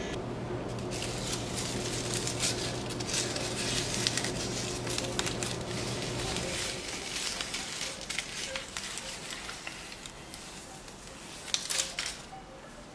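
A long, thin wood shaving from a hand plane rustling and crackling as it is handled, over a steady low hum that stops about halfway through. A few louder clicks come near the end.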